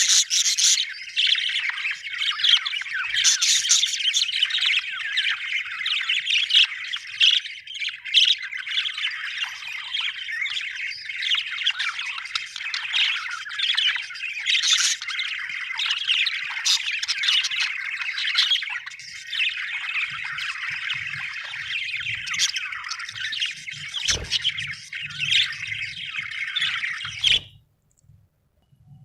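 Budgerigars chattering and chirping continuously, with louder squawks now and then. The chatter cuts off abruptly near the end.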